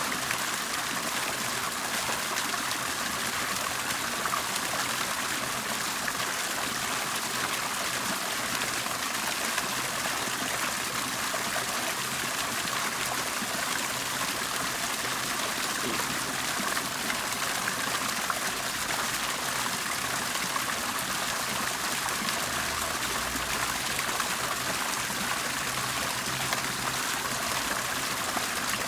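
Water bubbling and trickling steadily, an even splashing wash with no breaks.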